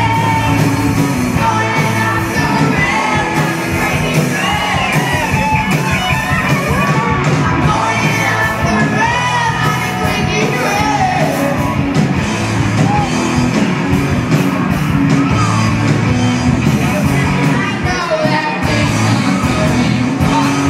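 Live rock band playing: electric guitars, bass and drums at full volume, with a voice singing over them.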